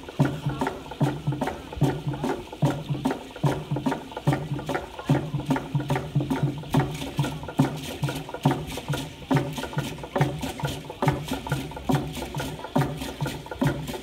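Malakula kastom dance music: a steady beat of about two strokes a second, with rattling on each stroke.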